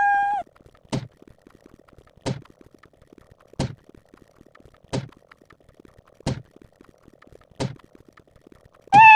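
A cartoon laser-shot sound effect, a quick falling zap, repeated at an even pace about every 1.3 seconds, six times. A cat meow sound effect ends just after the start, and another begins near the end.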